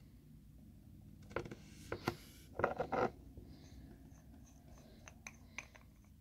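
A nail polish bottle and its brush being handled: a cluster of clicks and scraping from a little over a second in until about three seconds in, then a few faint ticks.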